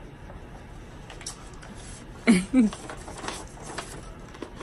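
A woman makes a short two-part voiced sound, a brief hum or murmur, about halfway through. Otherwise only faint clicks and rustles in a quiet small room.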